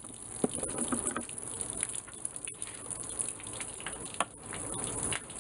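Water from a garden hose running and splashing, a steady hiss, with a few light clicks and knocks.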